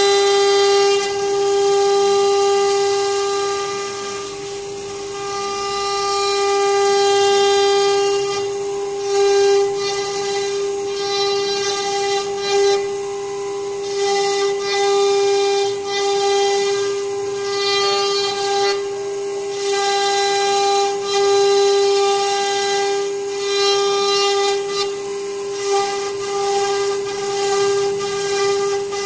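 CNC router spindle running with a steady high whine while its V-bit carves grooves into a wooden door panel. Over it, the cutting noise rises and falls as the bit works along the pattern.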